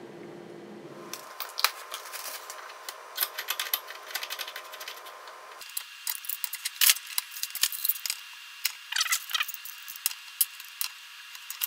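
A brass screw fitting being tightened onto a steel pipe in a vise, first by hand and then with a large wrench: irregular metallic clicks and clinks of wrench and fitting, with a few short squeaks about nine seconds in.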